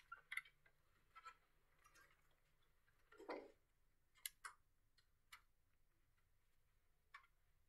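Near silence broken by faint, irregular clicks and taps, with one duller knock about three seconds in.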